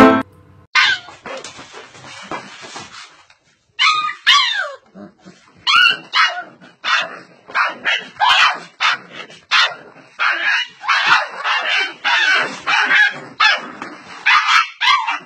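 Dog yips and whimpers: short, high calls, about one a second, some sliding down in pitch.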